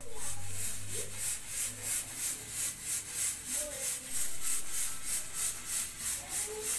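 Hands kneading oiled maida dough in a steel bowl: rhythmic rubbing and pressing strokes, about three a second.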